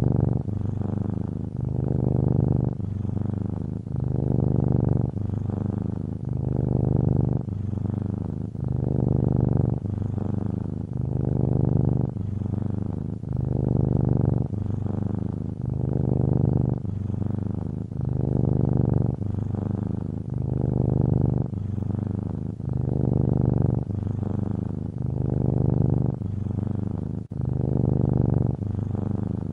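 Domestic cat purring, a low, continuous rumble that swells and eases in a regular cycle about every two seconds.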